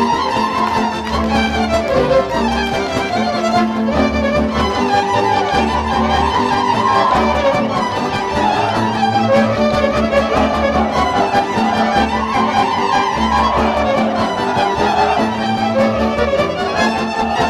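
Romanian folk dance music played live by a folk band: a fiddle leads a repeating melody over a pulsing bass accompaniment.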